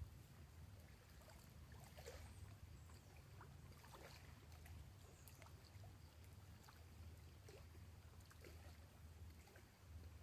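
Near silence: faint outdoor ambience, with a low steady rumble and scattered faint ticks, a little stronger about two and four seconds in.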